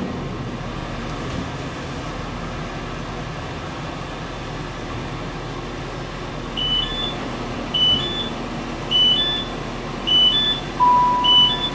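Door warning beeps inside a Northern Ireland Railways 4000 Class DMU standing at a station: a two-note rising beep about once a second, five times, then one longer steady lower tone near the end, sounding as the doors close before departure. Under it runs the steady low hum of the train.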